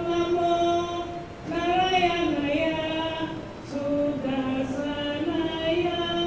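A woman's voice singing slow, long-held notes, sliding in pitch between some of them.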